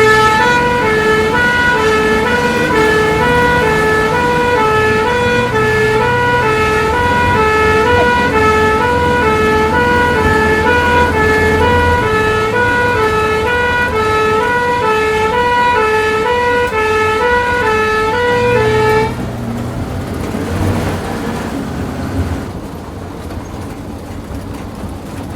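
Ambulance two-tone siren alternating between a high and a low pitch about once a second, heard from inside the ambulance over engine and road rumble. The siren cuts off about 19 seconds in, leaving only the vehicle running.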